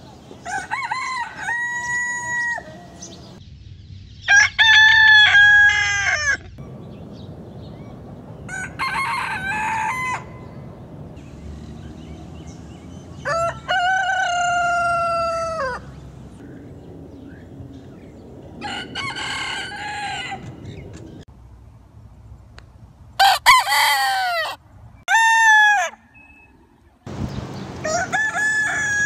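Roosters crowing: about eight separate crows of one to three seconds each, a few seconds apart, with two coming in quick succession near the end.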